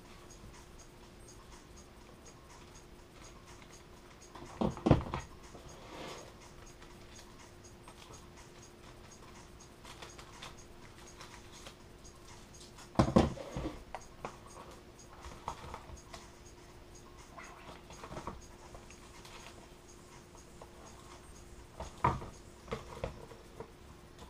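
Workbench handling noises as laminating film is cut and worked onto a foam RC plane wing. Three clusters of sharp knocks and rustling, with lighter taps between, over a faint steady hum.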